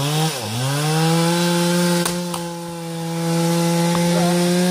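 Two-stroke chainsaw revved up and down a few times, then held at steady high revs while cutting firewood. A few sharp knocks of axes splitting logs come through over it.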